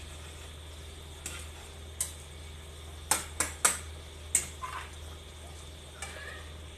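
A metal spatula stirring chicken broth in a metal pan and clinking against it in sharp taps, three in quick succession about three seconds in, then a metal lid set on the pan near the end. A steady low hum runs underneath.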